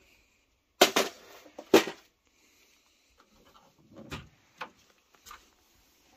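Hard plastic knocks and clicks from an HP PageWide E776 printer being opened up: two sharp knocks about a second apart, then quieter clicks and a softer sliding sound as the right side cover's latch is pulled and the cover swings open.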